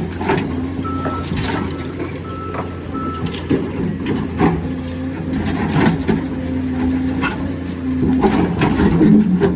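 Hydraulic excavator's diesel engine running under load while it works out an old concrete foundation footing, with repeated sharp knocks and clanks of the bucket on concrete. A beeping alarm sounds several times from about one to three seconds in.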